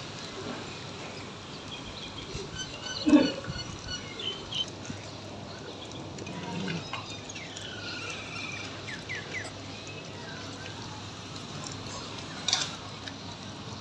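Puppies eating from a plastic bowl: irregular chewing, smacking and small knocks. There is a short loud sound about three seconds in and another near the end.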